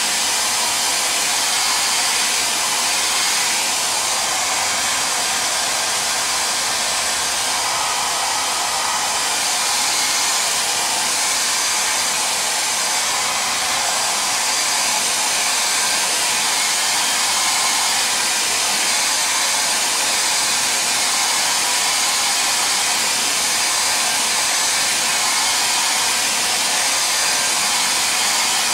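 Handheld hair dryer blowing steadily, drying a fresh coat of water-based leather dye.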